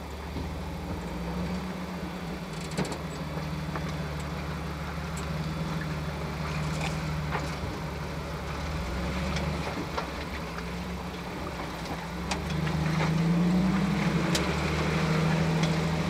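Off-road 4x4's engine running at low revs as it crawls over a rough dirt trail; about twelve seconds in the engine note rises and gets louder as it takes more throttle. A few sharp knocks come through along the way.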